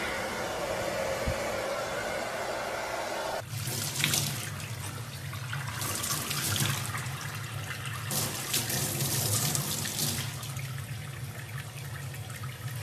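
A steady whooshing noise for about three seconds, cut off suddenly. Then a tap runs into a stainless steel sink, with bursts of splashing as a young chimpanzee plays its hands under the stream, over a steady low hum.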